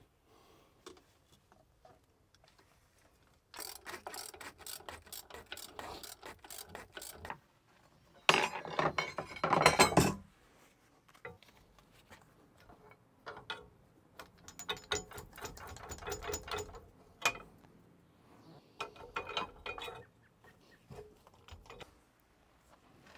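Hand socket ratchet clicking in quick runs as bolts are turned on a Mercruiser 5.0 engine during teardown. There is a louder, rattling burst about eight seconds in, and shorter runs of clicks later on.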